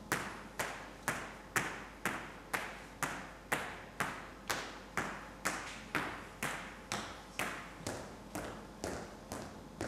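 Footsteps on a stage floor at a steady walking pace, about two steps a second, each step echoing briefly.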